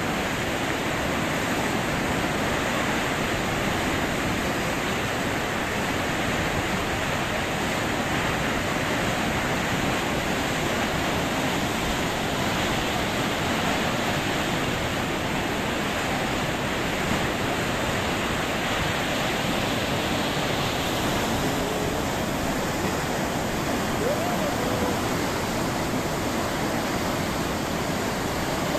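Hill-torrent floodwater in spate after heavy rain: a steady, unbroken rush of fast, churning muddy water spilling over a low crossing.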